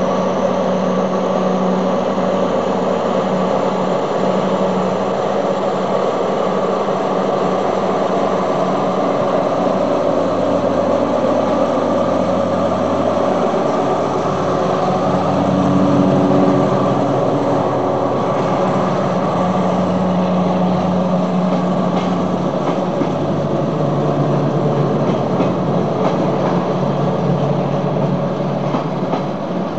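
Simulated diesel railcar engine sound for an HO-scale model railcar, running steadily as the railcar pulls away.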